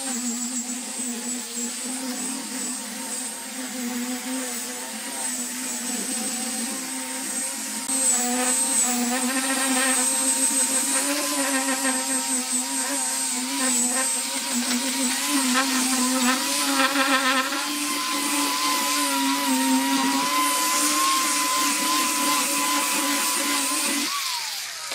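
Electric angle grinder fitted with a sanding disc, running with a steady high whine as it sands a pine tabletop. It gets louder about a third of the way in and falls away near the end.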